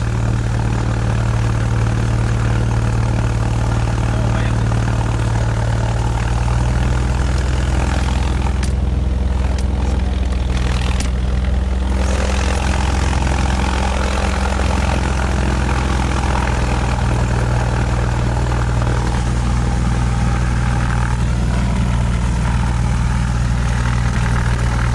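Cessna 182's piston engine and propeller heard from inside the cabin, running at takeoff power: a deep, steady drone that grows stronger about six seconds in.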